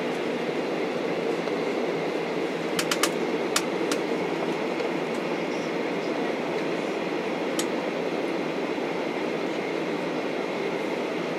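Steady cabin noise of a jet airliner taxiing, with a few sharp clicks between three and four seconds in and one more near eight seconds.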